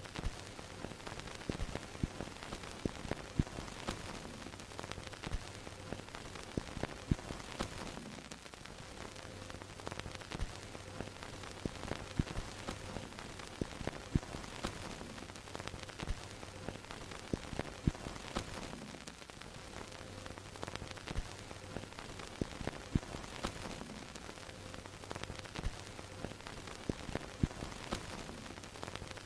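Old-film sound effect: a steady hiss full of irregular crackles and pops like dust and scratches on a film print, over a faint low projector hum that fades in and out every few seconds.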